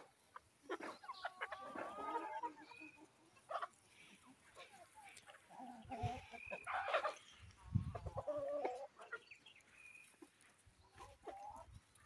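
A flock of free-range improved kienyeji chickens (Sasso type), hens and roosters, clucking and calling in short, scattered calls. A few low bumps sound around the middle.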